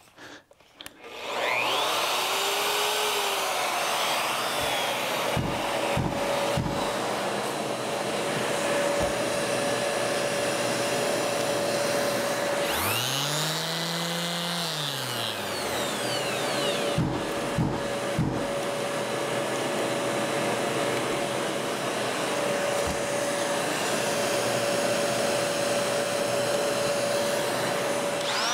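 Shop dust extractor (vacuum) running steadily, switched on automatically by a power tool's trigger. About halfway through, a power tool spins up and winds down over a few seconds.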